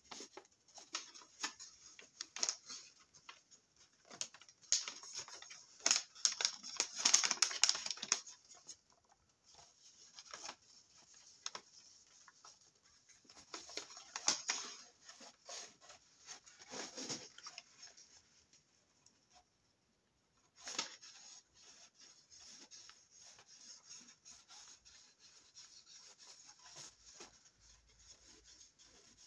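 Sheet of white paper being folded and crumpled by hand, crinkling and crackling in irregular bursts, loudest about six to eight seconds in.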